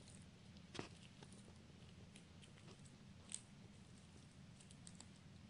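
Cavalier King Charles Spaniel puppy gnawing a hide chew: faint, scattered clicks of teeth on the hide, with two sharper clicks about one second in and a little past three seconds.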